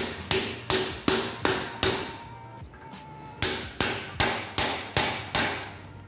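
Repeated blows of a solid iron bar knocking the cut secondary winding out of a microwave oven transformer's core, about two and a half a second, in two runs of about six with a short pause between. Each blow gives a sharp metallic knock with a brief ring.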